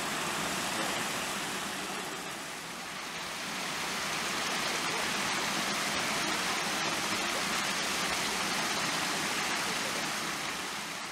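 Steady rush of running water, an even hiss with no break, dipping a little about two to three seconds in.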